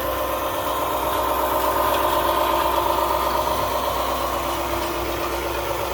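1/14-scale RC 8x8 dump truck running, a steady mechanical hum and whine from its drive that swells a little in the middle.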